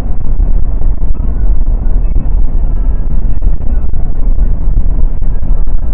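Steady, loud road and wind noise of a car cruising at highway speed, heard from a dash camera inside the car, dominated by a deep low rumble.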